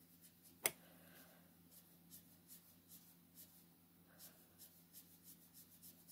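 Faint, quick strokes of a Copic alcohol marker's tip flicked across paper, a short stroke every fraction of a second, with one sharper click about half a second in.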